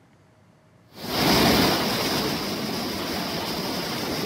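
Near silence, then about a second in the steady rush of a fast, muddy flooded river cuts in suddenly and holds.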